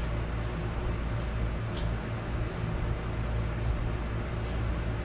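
Air conditioner running with a steady low hum and hiss, with one faint light click about two seconds in.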